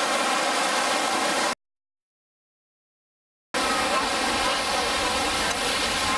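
Steady rushing of surf and wind on the microphone. About a second and a half in it drops to dead silence for two seconds, then the same rushing comes back.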